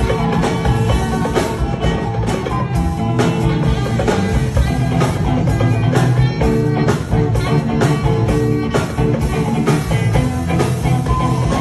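Live rock band playing: electric guitars over a drum kit keeping a regular beat.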